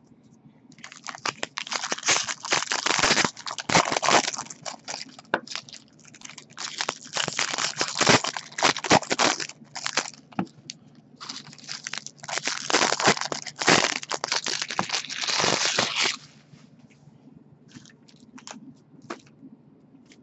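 A stack of trading cards being handled and dealt into a second pile: dense papery crackling and rustling with many small slaps of card on card, stopping about sixteen seconds in.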